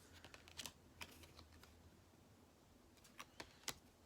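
Near silence broken by faint scattered clicks and taps of trading cards being handled and flicked through.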